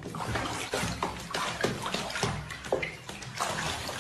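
Water splashing and sloshing in a bathtub, with irregular splashes over a continuous wash of water noise.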